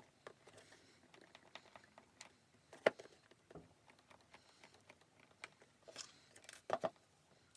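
Faint, scattered light clicks and taps of wooden popsicle sticks and a soldering iron being handled on a small box, with a sharper tap about three seconds in and a short cluster of taps near the end.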